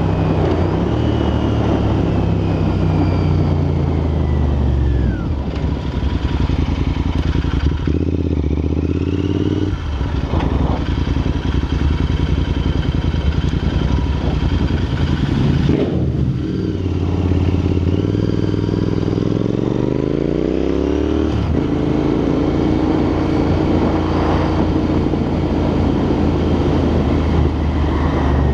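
Royal Enfield INT650's parallel-twin engine running through aftermarket Red Rooster exhausts on the move, with wind noise on the microphone. The exhaust note climbs in pitch under throttle and drops sharply at each of several gear changes.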